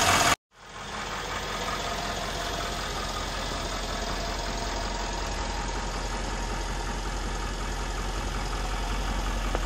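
Twin-turbo 5.5-litre V8 of a 2012 Mercedes-Benz E63 AMG idling steadily, heard from outside the car; it breaks off briefly about half a second in and then resumes unchanged.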